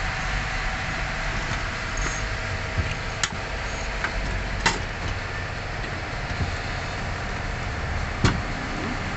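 Steady mechanical background hum with a few sharp clicks, about three over several seconds, from parts being handled during a fuel pump replacement.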